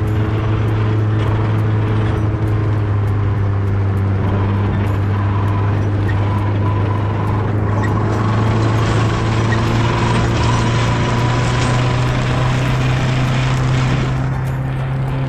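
New Holland tractor engine running steadily under load while pulling a harrow through dry soil, a constant low drone that edges up in pitch near the end.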